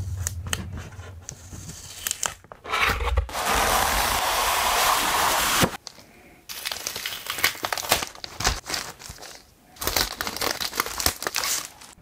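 Packaging being handled and opened: irregular crinkling and rustling, with a longer continuous tearing or sliding rustle in the middle and scattered small clicks.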